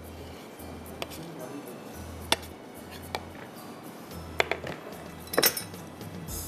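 A knife clinking against the rim of a metal pizza tray as excess dough is trimmed off: several sharp, separate clinks, the loudest about five and a half seconds in, over quiet background music.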